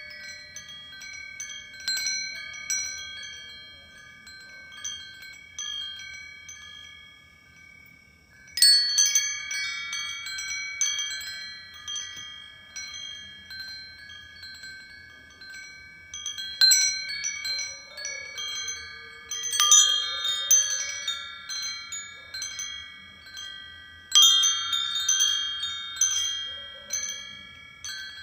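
Metal wind chimes ringing. Clusters of tinkling strikes come a few seconds apart, and each leaves clear sustained tones that slowly fade.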